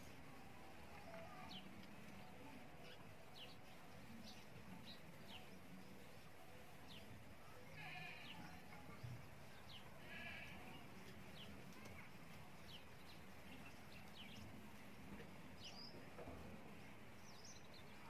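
Faint outdoor background of small birds chirping in short, high notes scattered throughout, with two brief faint livestock bleats, about eight and ten seconds in.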